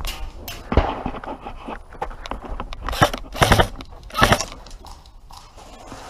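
Airsoft gunfire: four short bursts, the loudest three between about three and four and a half seconds in.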